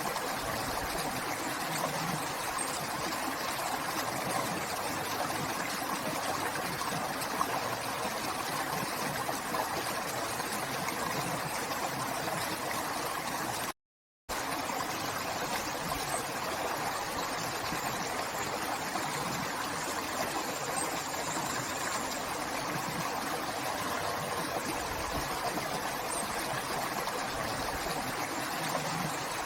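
River water flowing in a steady, even rush. The sound cuts out completely for about half a second a little before the middle, then resumes.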